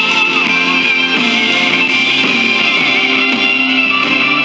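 Music with held chords and a wavering melody line near the start.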